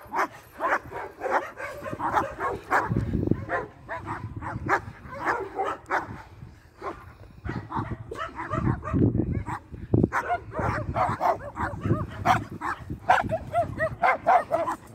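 A pack of dogs barking and yipping over one another in quick, repeated calls, with bouts of low rumbling noise now and then.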